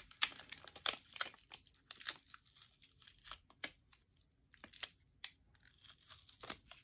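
Stiff clear plastic coin sleeves crinkling and crackling as they are handled and pulled apart, in quick irregular crackles with a short lull about midway.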